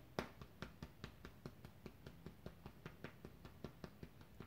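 Fingertips tapping on the side of the ribcage below the armpit, the under-arm point in EFT tapping: a soft, steady run of light taps, about five a second.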